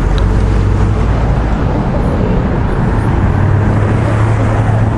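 A motor vehicle's engine running steadily close by, a low hum over traffic noise.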